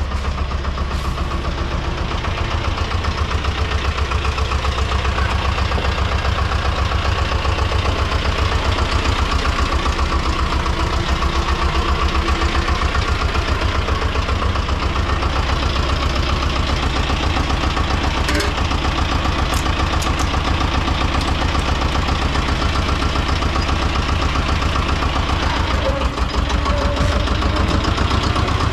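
Tomo Vinković TV 731 tractor engine running steadily with a fast, even beat.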